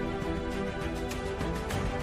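Background music with steady held notes and a light regular beat.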